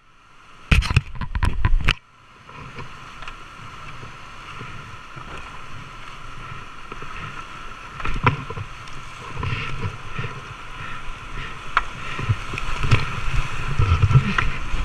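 Whitewater rushing on a mountain creek, heard through a kayaker's action camera; the rush grows louder over the last several seconds as the boat runs into a rapid, with repeated low thuds of water against the boat and camera. A few loud knocks and rumbles come in the first two seconds.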